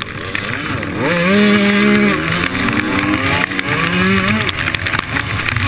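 Enduro dirt bike engine heard from on board while riding, revving up about a second in, holding, easing off, then revving up again briefly before easing off near the end, with wind rush on the microphone throughout.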